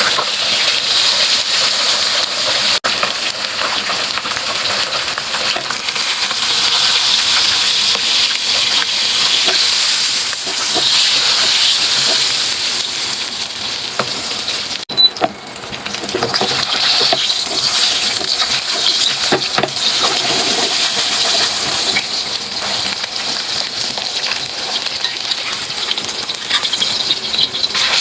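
Food frying in hot oil in a pan, sizzling steadily, broken off sharply twice.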